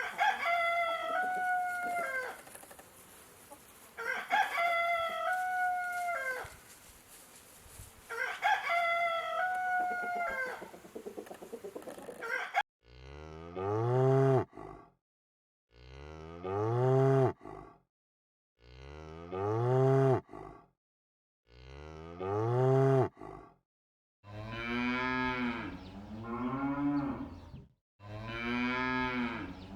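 A rooster crows three times, about four seconds apart. Then cows moo over and over, six long low calls.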